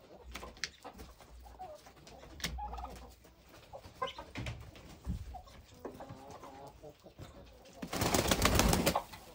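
Chickens clucking as they come out of the coop, with small clicks and scuffs of feet on the wooden ramp. Near the end a hen flaps hard down the ramp, about a second of loud wing beats.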